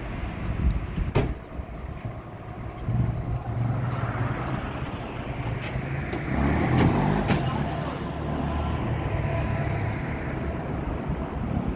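Motor vehicle engine running with a steady low rumble, with a few sharp clicks or knocks: one about a second in and a few more past the middle.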